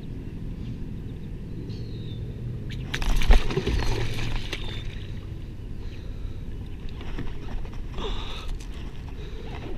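Water splashing beside a kayak as a large northern pike held in lip grips moves in the water, with one loud splash about three seconds in and a smaller one near the end.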